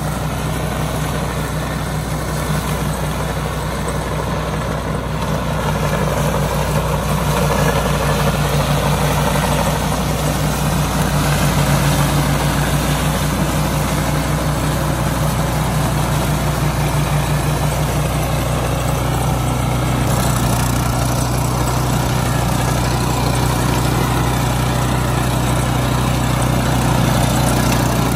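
Engine of a tracked flail (hammer-knife) mower running steadily, getting slightly louder after about six seconds.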